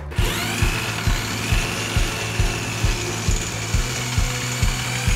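A cordless drill spins up with a rising whine, then runs steadily as it drills into a car's steel front frame rail to cut away the damaged rail end.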